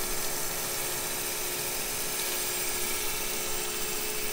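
A crankshaft grinder's wheel grinding the outside diameter of a stainless engine valve: a steady hiss over a constant hum. The wheel is feeding in the last ten thousandths toward its stop before sparking out.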